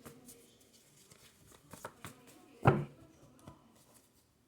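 Tarot cards being handled, soft scattered card clicks and slides, with one loud thump about two and a half seconds in.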